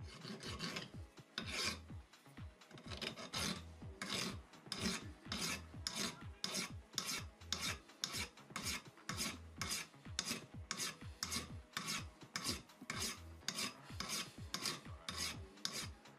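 Hand file rasping back and forth over a metal part clamped in a bench vise. The strokes come unevenly for the first few seconds, then settle into a steady rhythm of about two strokes a second.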